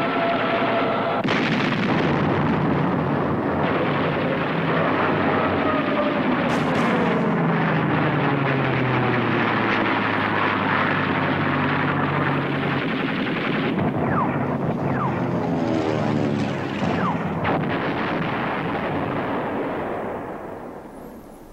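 Dense, continuous battle noise of shipboard anti-aircraft guns firing, mixed with the engine drone of attacking aircraft, whose pitch falls as planes dive past. The din fades away near the end.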